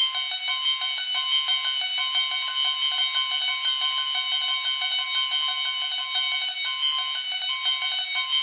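Railroad crossing warning bells ringing without a break. A steady high ringing tone runs over a regularly repeating pulsed pattern, as at a level crossing with the signal active.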